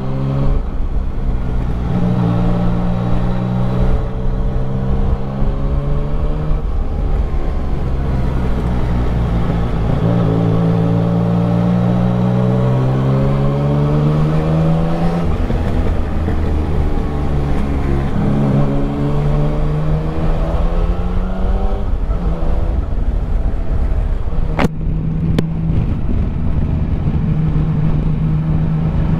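Yamaha Tracer 900 GT's three-cylinder engine through an aftermarket Roads Italia Thunder Carbon exhaust, accelerating hard: the pitch climbs and drops back with each of several gear changes, then holds steadier near the end. Two sharp clicks about 25 seconds in.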